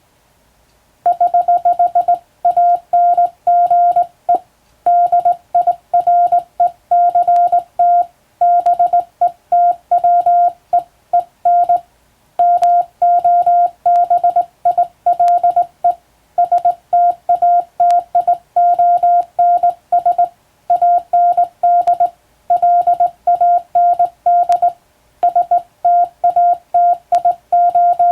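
Morse code (CW) tone keyed on a telegraph key: one steady beep switched on and off in dots and dashes, with short gaps between letters and words, starting about a second in.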